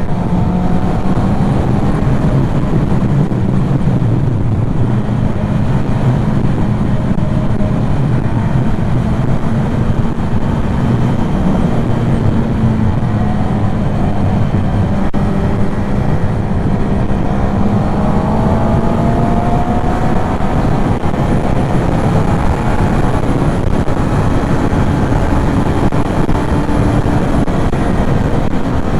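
Motorcycle engine running steadily under way, with constant wind and road rush. Past the middle, engine notes glide up and down, as motorcycles rev through the gears.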